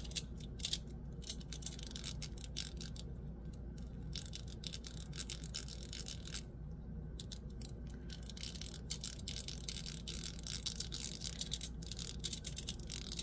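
Gao Studio Magnetic Master 2.0 haptic coin being turned by hand, its top spun while the body is held: runs of small light clicks and rubbing, sparse at first and dense from about four seconds in, with a short pause in the middle.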